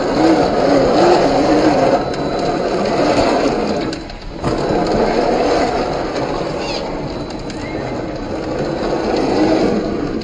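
Axial SCX10 III RC rock crawler's 540-size 35-turn brushed motor and gear drivetrain whining as it crawls over rock, its pitch wavering with the throttle. The sound dips briefly about four seconds in.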